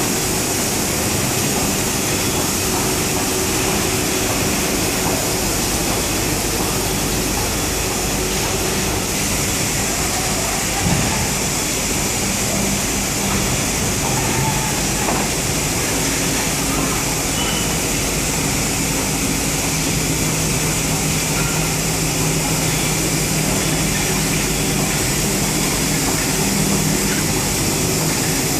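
Large hydraulic injection moulding machine running in a factory hall: a steady hiss with a low hum that comes and goes and shifts in pitch as the machine cycles. One short knock about eleven seconds in.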